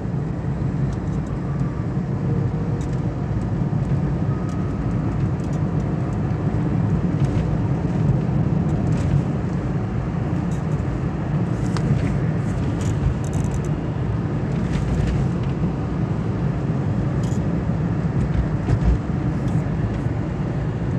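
Steady low rumble of a car driving along a highway, heard from inside the cabin: engine and tyre road noise, with a few faint clicks.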